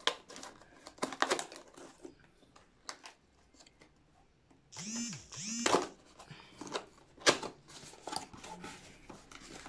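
Cardboard handling: a laptop's retail box rubbing, scraping and knocking as it is worked out of its tight brown cardboard outer sleeve, with scattered clicks and thumps. About five seconds in there are two short squeaks that rise and fall.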